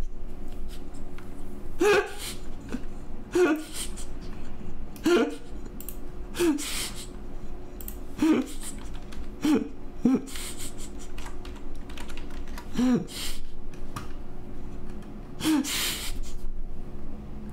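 A man laughing hard in short bursts, about one every second and a half, with computer keyboard typing between them.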